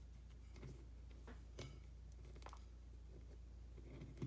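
Faint, scattered clicks of small steel parts handled by fingers as the mainspring on a Sig Sauer P320 striker is pulled down to free its two spring cups, with one sharper click near the end. A steady low hum runs underneath.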